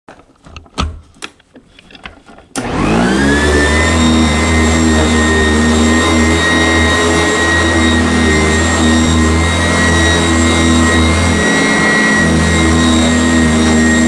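A few clicks and knocks, then about two and a half seconds in a Sanitaire commercial upright vacuum cleaner switches on, its motor quickly spinning up to a steady whine. It keeps running as it is pushed over carpet.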